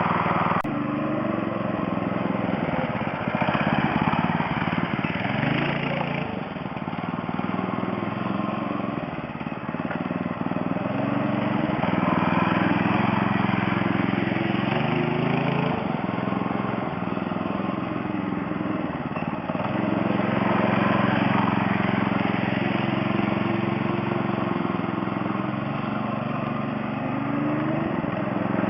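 Go-kart's 6.5 hp Honda-clone single-cylinder engine running, its pitch rising and falling several times as the throttle is opened and eased off.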